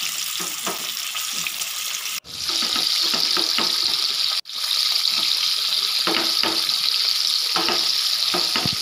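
Chicken pieces deep-frying in hot coconut oil in a wok: a steady sizzling hiss with faint light taps. It cuts out briefly twice and is louder after the first break.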